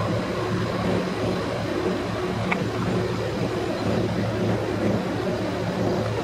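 An engine running steadily at idle, an even low drone, over outdoor background noise, with a faint click about two and a half seconds in.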